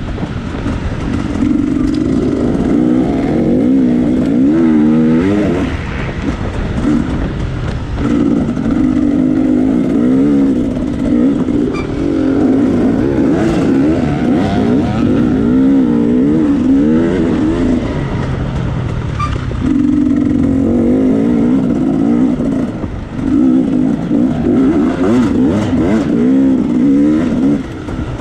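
Off-road dirt bike engine heard up close from an action camera, revving up and down with constant throttle changes as it is ridden through a trail. It eases off briefly several times.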